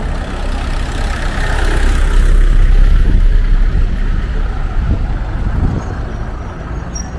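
A minibus drives past close by. Its engine and tyre noise grows louder, peaks, then eases off.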